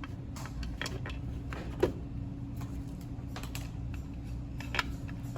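Scattered light clicks and taps, with a sharper knock about two seconds in and another near the end, over a steady low hum.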